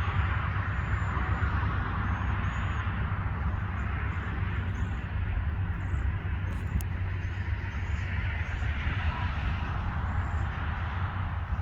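Many thin, very high-pitched calls of a cedar waxwing flock, short and scattered, over a steady rumble of road traffic, which is the louder sound.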